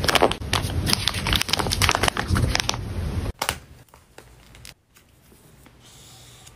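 A grey plastic mailer bag crinkling as hands press and smooth it, a dense run of small crackles that cuts off abruptly a little over three seconds in, leaving only faint handling sounds.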